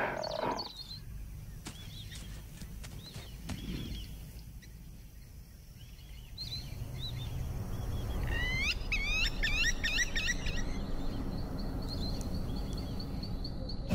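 Savannah ambience: birds chirping, with a quick run of rising chirps about two-thirds of the way through, then a steady high insect trill near the end, over a low rumble.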